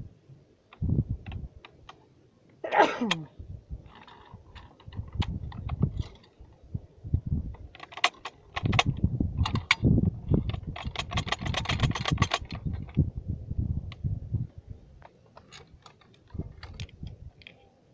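Steel parts of a 14.5 mm anti-aircraft machine gun being handled and fitted together by hand: scattered metallic clicks, knocks and scrapes, with a dense run of clicking around the middle. A short falling tone sounds about three seconds in.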